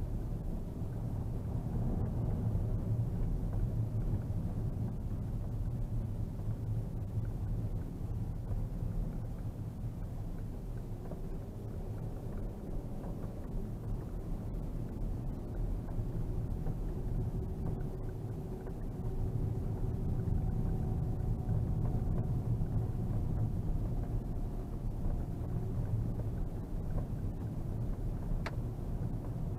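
Škoda Superb II's 3.6-litre VR6 and its tyres on a snow-packed road, heard from inside the cabin as a steady low rumble with a faint engine tone drifting up and down. A single sharp click comes near the end.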